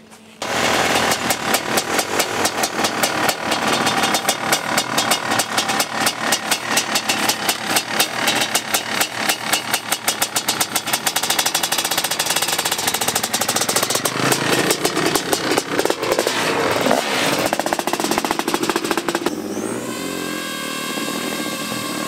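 Two-stroke dirt bike engine running and revving, a fast rattle of firing pulses that swells and drops. Near the end it gives way to the steady high whine of an FPV quadcopter drone's propellers.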